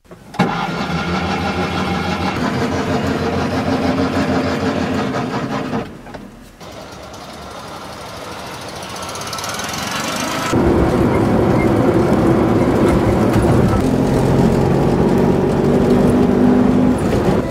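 Classic Fiat 500's air-cooled two-cylinder engine running as the car drives off. The note drops away about six seconds in and builds again gradually, then turns louder and closer from about ten seconds in, heard inside the cabin while driving.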